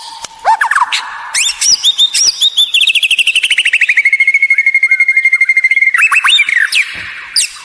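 White-rumped shama (murai batu) singing: loud whistled notes and glides, with a long rapid trill in the middle that slides down in pitch and then holds steady before breaking into more varied phrases.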